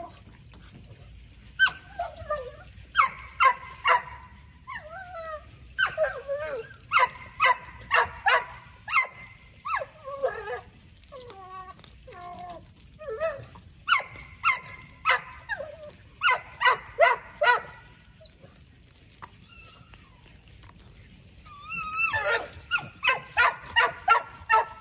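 American pit bull terrier barking and yelping in quick runs of several calls each, with a few whines among them and short pauses between the runs.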